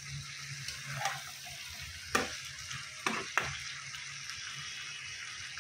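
Potato and brinjal pieces with fried onion and prawns sizzling in oil in a wok as a spatula stirs them, with a few short scrapes of the spatula against the pan.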